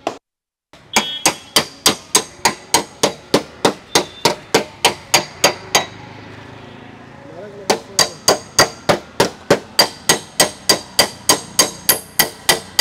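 Rapid light metal-on-metal taps from paintless dent repair tools working the Hyundai Accent's steel front fender, about four a second, each with a short metallic ring. The tapping starts about a second in, stops for about two seconds midway, then resumes at the same pace.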